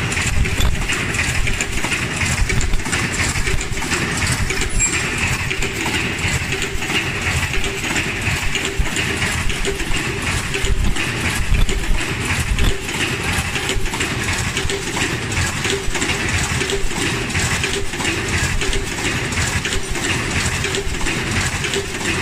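Nobel NBL 4800F automatic 1+1 disposable face mask making machine running at production speed: fast, continuous mechanical clicking and clatter over a steady machine hum.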